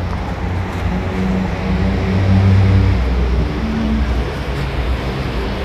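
A vehicle engine running close by: a low hum with a shifting pitch that grows louder about two seconds in, then eases off again.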